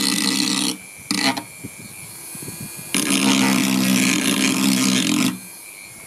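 Corded rotary tool running with a steady high whine while a bone guitar saddle is ground down against its bit: three loud grinding bursts, a short one at the start, a brief one just after a second, and a longer one of about two seconds from three seconds in.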